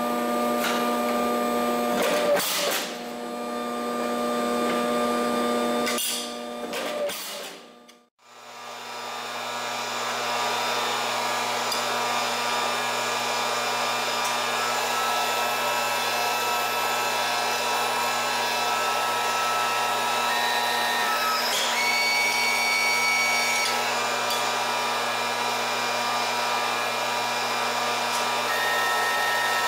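Steady drone of running metal-shop machinery, like an electric motor. In the first few seconds it is joined by a few sharp metal clanks at a sheet-metal shear. The sound cuts out briefly about eight seconds in, then the drone runs on evenly.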